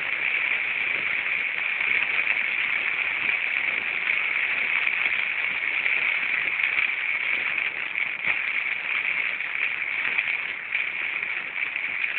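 Rain falling steadily: an even hiss with no letup, and now and then a faint tick.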